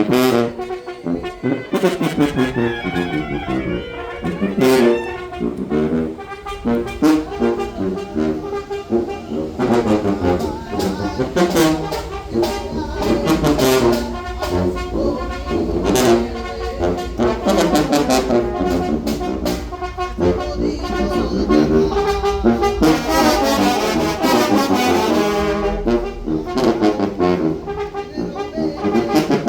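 Mexican banda brass band playing, trombones and trumpets over frequent drum and cymbal hits.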